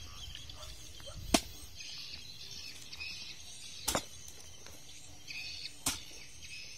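A hoe blade striking hard, stony dirt three times, about two and a half seconds apart, each a sharp chop.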